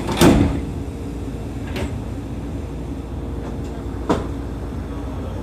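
Steady low hum in the cab of a Seibu 30000 series train standing at the platform, with a sharp knock about a quarter second in and two lighter clicks about two and four seconds in.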